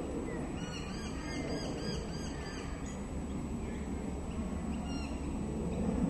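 Laughing kookaburra calling: a quick run of repeated rising-and-falling notes, about four a second, for a couple of seconds, then a few fainter notes near the end, over a steady low rumble.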